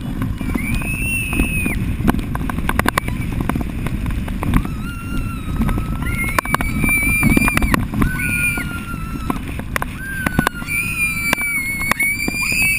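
Children shrieking and squealing on a towed banana boat, several long, high held shrieks over loud, steady wind and water rush on the mic. Scattered sharp knocks as the boat bounces over the chop.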